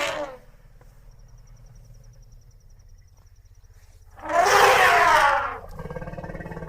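Asian elephant calls: a loud, harsh call lasting over a second about four seconds in, running straight into a lower, pulsing rumble, with the tail of another loud call at the very start and a low rumble underneath between them.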